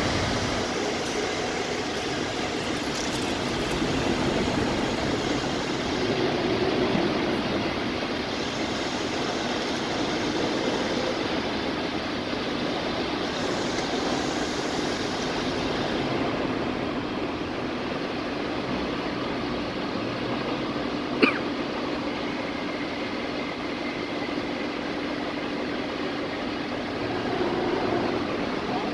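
Steady rumble of running vehicle engines and road traffic, with a faint steady hum in the second half and one sharp clank about 21 seconds in.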